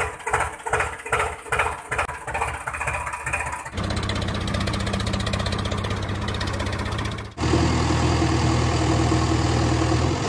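Tractor engine sounds that change abruptly twice. First an engine chugging at idle, about three beats a second; about four seconds in it cuts to a steadier, denser engine run, and about seven seconds in to another steady engine note with a strong low hum.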